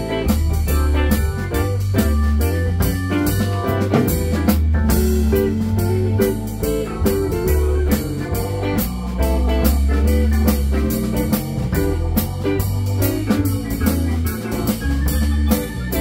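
Live band of drum kit, electric guitar and keyboards playing together, with a steady beat and low bass notes underneath.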